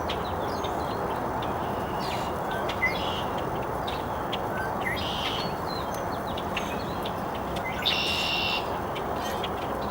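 Wild songbirds chirping and calling over a steady background hiss, with scattered short chirps and one louder, longer call about eight seconds in.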